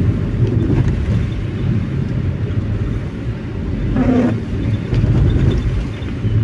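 A vehicle driving along a road: a steady low engine and road rumble. About four seconds in, a short pitched sound with overtones stands out briefly.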